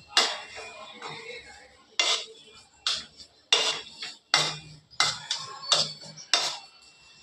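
Kitchen utensils striking dishes: about eight sharp metallic knocks and clinks, spaced under a second apart, each ringing briefly.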